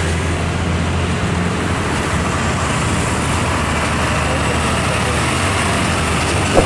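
Diesel engine of a Hino 500 cement tanker truck running as the truck drives past, over steady road traffic noise. A brief click sounds near the end.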